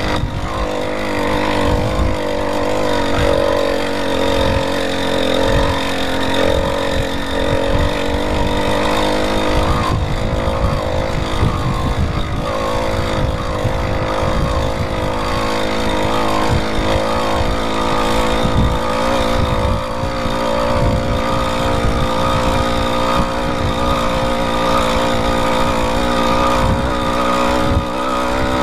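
80cc two-stroke motorized-bicycle engine running steadily at cruising speed, with wind buffeting the microphone.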